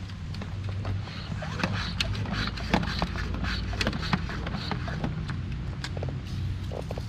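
Hand-pump pressure sprayer being pumped up, its plunger strokes coming about twice a second for a few seconds, with scattered clicks over a steady low hum.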